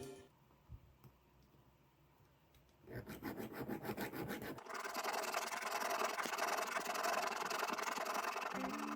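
Scraping and rubbing on a hard surface: about a second and a half of quick rasping strokes starting about three seconds in, then a steady, hissy rub.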